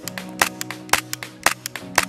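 Poseidon FMG-9 gas blowback airsoft replica firing shot after shot, four sharp cracks about half a second apart with smaller clicks between them. Background music plays underneath.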